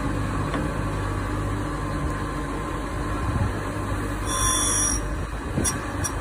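TX-60A drill bit grinder's motor and grinding wheel running with a steady hum while a large drill bit's cutting edge is ground. There is a brief harsher hiss of grinding about four seconds in, then a few faint ticks near the end.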